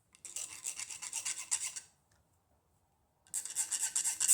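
Metal file rasping across the cut end of a fine silver wire ring blank, taking off the sharp burrs left by the chisel. Two runs of quick strokes: one about two seconds long, then a second run beginning past three seconds in.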